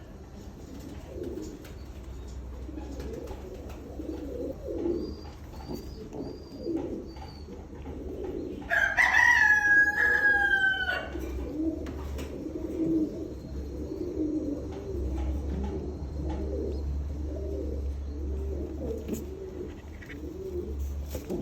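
Pigeons cooing, low coos repeated over and over. About nine seconds in, a rooster crows once, loudly, for about two seconds.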